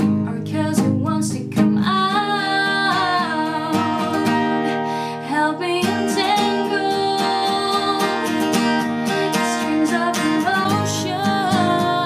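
A woman singing while strumming an Alvarez acoustic guitar, picked up by a Canon 60D camera's built-in microphone. Her long sung notes waver slightly in pitch over steady strummed chords.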